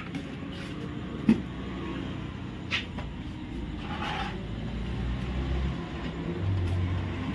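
A motor running with a steady low drone that swells about five seconds in, with a single knock about a second in.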